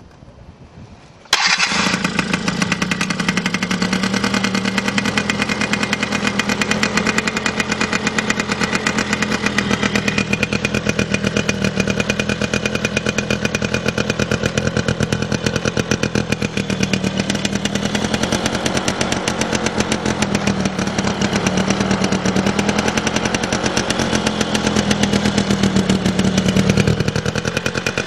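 Yamaha Cute CN50 scooter's small two-stroke engine starting up suddenly about a second in, then running at a steady fast idle with a rapid even pulse, its speed wavering slightly now and then. The engine is running again after its repair.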